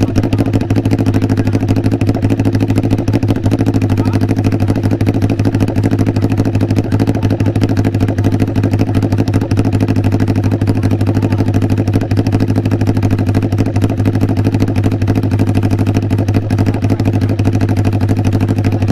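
Inline-four Kawasaki Ninja 400 RR (ZX-4RR) engine running at a steady speed through an SC-Project aftermarket exhaust, its pitch holding even with no revving.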